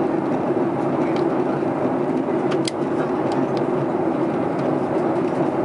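Steady cabin noise inside a Boeing 737-900ER in flight: the even rush of its CFM56 jet engines and airflow, with a few faint clicks about halfway through.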